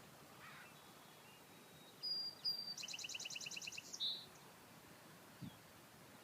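A small songbird sings one song about two seconds in: two short high notes, a fast even trill of about a dozen notes, and a short buzzy note to finish. A brief low thump comes near the end.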